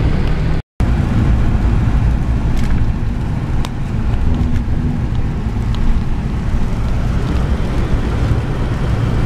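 Steady road noise inside a moving car's cabin: the low rumble of the engine and tyres on wet tarmac. The sound cuts out completely for a moment less than a second in.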